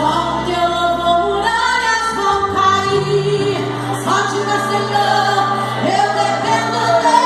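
Gospel worship song: several voices singing a melody together over held bass notes.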